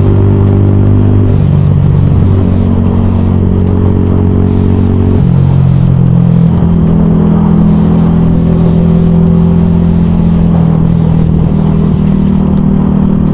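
Yamaha YZF R125's single-cylinder 125cc four-stroke engine running under way. Its pitch steps down and up several times as the revs change.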